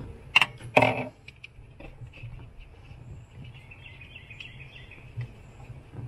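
Two sharp clicks about half a second apart, then lighter scattered ticks: hands fitting alligator clips onto thermistor wire leads against a wine cooler's plastic cabinet liner.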